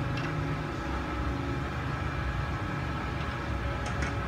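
Steady mechanical hum with a low rumble, like a fan or motor running, with a light click just after the start and another near the end.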